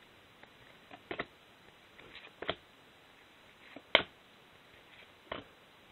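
Football trading cards being handled and flipped through in a stack: a handful of light, separate clicks and ticks from the card edges, the sharpest about four seconds in.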